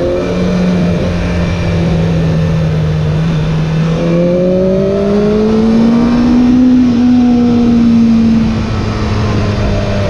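Honda CBR600F4's inline-four engine running under way as the bike is ridden, holding a steady note, then revving up about four seconds in, holding the higher note, and easing back off near the end.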